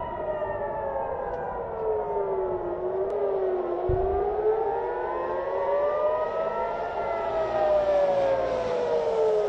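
Several civil-defence warning sirens wailing at once. Each tone slowly rises and falls over several seconds, out of step with the others. This is the rising-and-falling missile-attack alert.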